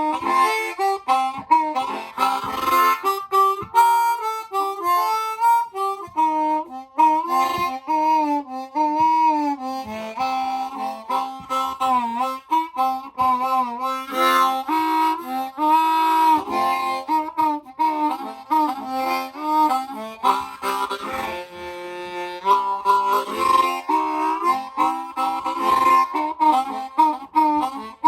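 Blues harmonica playing: chords and single notes with bent, sliding pitches, and a fast warble a little past the middle.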